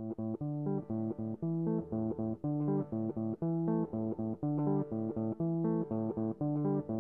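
Background music: a repeating riff of short notes.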